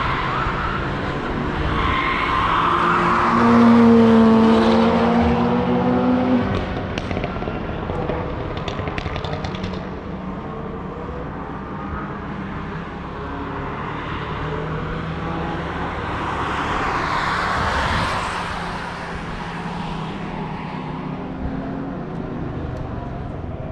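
Cars driving past on a race track: one passes loudly about four seconds in with a steady engine note, and another passes, less loudly, near the end, over a constant background of engines further along the circuit.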